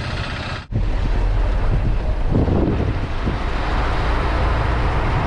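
Wind buffeting the microphone over the low rumble of a moving vehicle, a steady loud noise that drops out briefly just under a second in and comes back louder.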